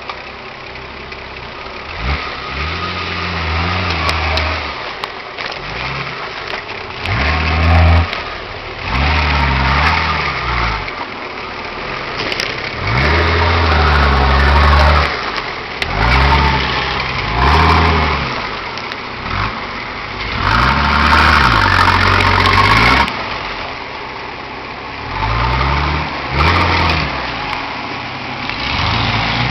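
Off-road 4x4's engine revving repeatedly in short bursts, the pitch climbing and dropping about ten times, as the vehicle works through rough, rutted ground. The longest and loudest burst comes about two-thirds of the way through.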